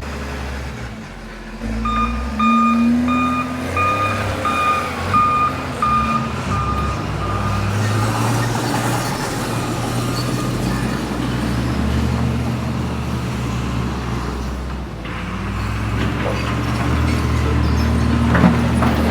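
A heavy diesel construction machine's engine running and changing pitch as it works. Its backup alarm beeps about twice a second for several seconds, starting about two seconds in.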